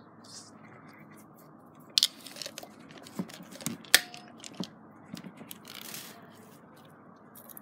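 Handling of a plastic Blythe doll's head and long hair close to the microphone: rustling with a few sharp plastic clicks and knocks, the loudest about four seconds in.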